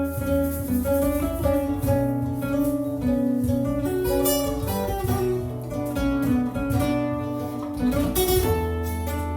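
Improvised instrumental music with pitched notes changing throughout over a sustained low bass.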